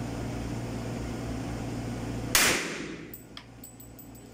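.45-calibre pistol fired once, about two and a half seconds in: a single sharp shot ringing out briefly in the indoor range, over a steady low hum. After the shot the hum falls quieter and a few faint ticks follow.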